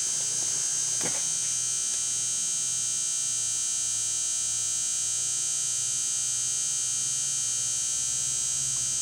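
Steady high-pitched electrical whine over a faint low hum, with a brief click about a second in.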